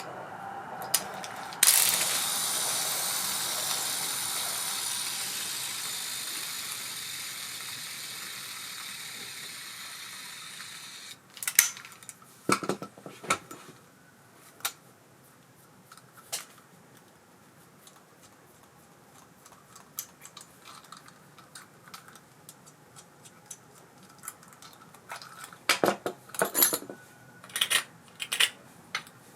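Abu Garcia Ambassadeur 5500C baitcasting reel's spool set spinning freely, a steady whir that fades over about nine seconds and is then stopped abruptly. Scattered light clicks and taps of the reel being handled follow.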